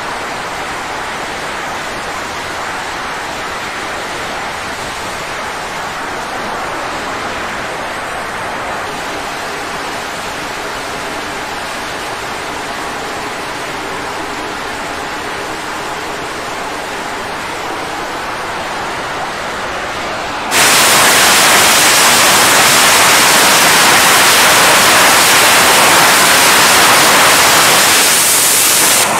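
F/A-18 Super Hornet jet engines running at high power on a carrier flight deck: a steady, rushing jet roar. About twenty seconds in it jumps abruptly louder and brighter.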